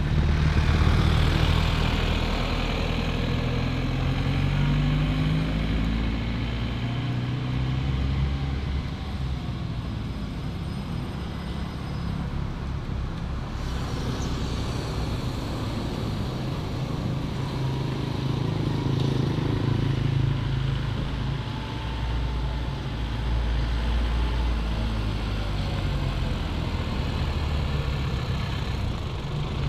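Motor vehicle engines running, a steady low rumble whose pitch slowly rises and falls. The sound changes abruptly about halfway through.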